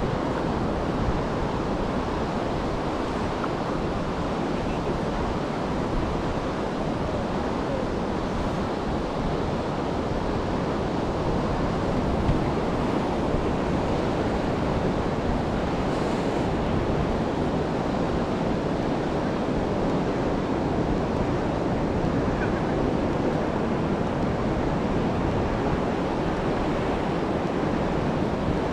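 Ocean surf washing onto a beach in a steady, continuous rush, with wind buffeting the microphone.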